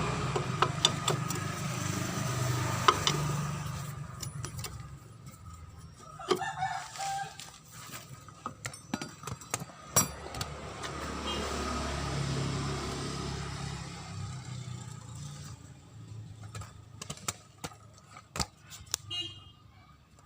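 A rooster crows about six seconds in, over scattered metallic clicks and knocks from tools taking apart a Honda BeAT scooter's CVT gear case. A low engine hum fades out near the start and swells and fades again around twelve seconds in.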